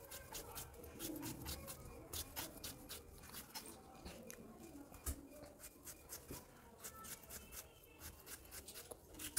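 Raw potato being cut into a spiral on a sharp boti (Bengali curved floor blade): a faint, irregular run of crisp clicking cuts, several a second.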